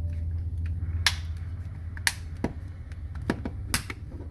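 Plastic casing of a TCL TV remote being pressed shut, its clips snapping into place in several sharp, uneven clicks.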